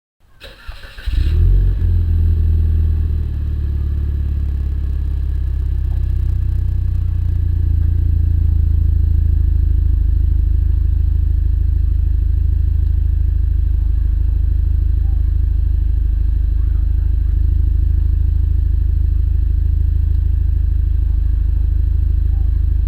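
2014 Cadillac ATS's 2.0-litre turbocharged four-cylinder engine cranking and catching about a second in, its revs flaring briefly and settling within a few seconds into a steady idle through a MagnaFlow cat-back exhaust.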